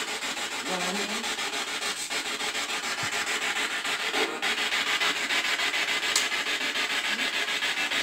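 Hissing radio static from a handheld spirit box sweeping through stations, chopped into rapid, even pulses, with a short click about six seconds in.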